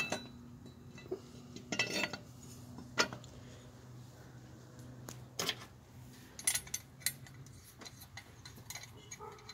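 Metal clinks and knocks from a cast-aluminium power steering pump bracket being fitted over engine studs and its nuts started by hand: a handful of sharp, ringing clinks spread through, the strongest about three seconds in.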